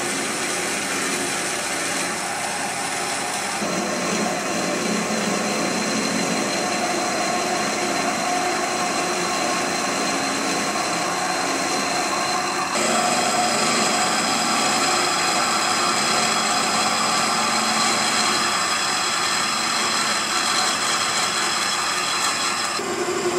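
Metal lathe running while a twist drill in the tailstock chuck bores into the spinning gear blank, opening the bore in stages with successively larger drills. Steady machine whine and cutting noise, which changes in pitch and grows a little louder about 4 and about 13 seconds in.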